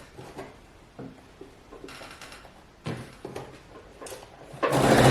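Soft handling clicks and rustles, then an electric sewing machine starts stitching about four and a half seconds in, running steadily with a low motor hum.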